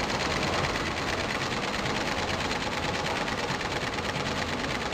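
Richrui multi-head computerized embroidery machine stitching: the needle heads clatter in a fast, even rhythm.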